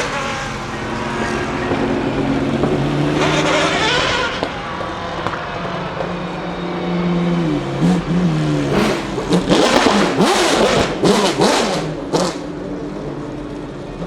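Ferrari F40 LM's straight-piped twin-turbo V8 idling, then revved. About two-thirds of the way in comes a rapid run of sharp exhaust crackles and pops.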